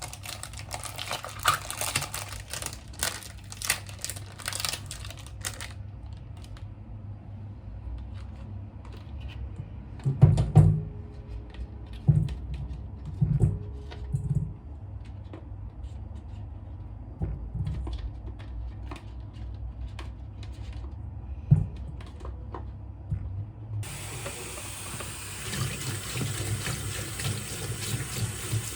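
Kitchen tap running water at the start, then a stretch of scattered knocks and clicks of kitchen utensils, and the tap running steadily again over the last few seconds.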